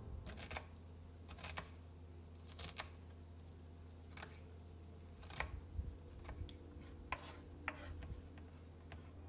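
Chef's knife cutting down through an onion onto a wooden cutting board: a dozen or so separate sharp knocks at an irregular pace, about one a second.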